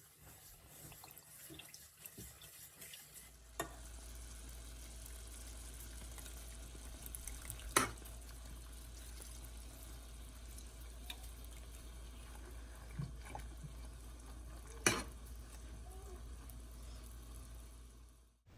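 Stirring in a cooking pot, with a few sharp clinks of the utensil against it over a steady low hum that starts about three seconds in.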